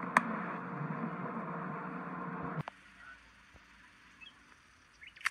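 Slime being squished by hand in a jar: dense squelching and crackling with a sharp click near the start. It cuts off suddenly about two and a half seconds in, leaving much quieter sound with a few soft clicks.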